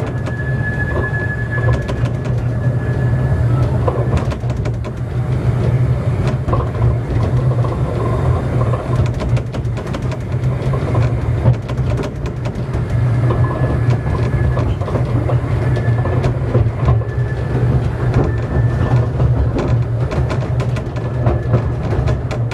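Narrow-gauge passenger carriage running along the track, heard from on board: a steady low rumble from the wheels, with many small clicks and knocks. A faint high thin squeal comes and goes at the start and again through the second half.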